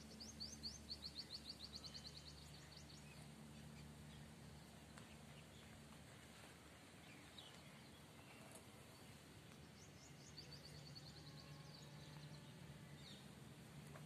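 A bird singing a fast trill of high, falling notes, twice: once right at the start for about two and a half seconds, and again about ten seconds in. A faint steady low hum lies underneath.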